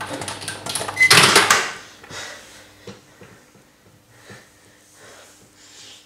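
Microwave oven being switched off mid-cycle: a button click, a short beep about a second in, and a brief louder burst of noise as the steady running hum cuts off. Soft breathing and sniffing follow.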